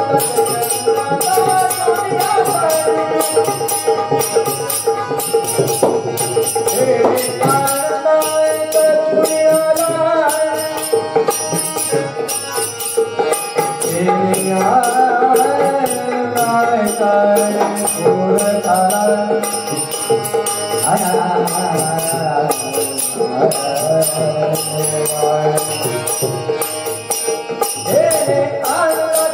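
Music of a Marathi gavlan devotional folk song: a steady held drone under a wandering melody line, with regular jingling percussion keeping the beat.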